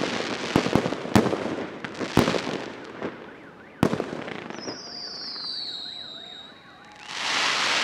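Aerial fireworks shells bursting at the end of a display: dense crackling and several sharp bangs that thin out and die away over the first four seconds, followed by a thin falling whistle and, near the end, a brief swell of broad noise.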